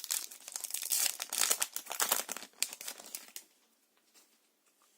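Foil wrapper of a Yu-Gi-Oh booster pack crinkling as it is torn open and handled, a dense crackling rustle that stops about three and a half seconds in.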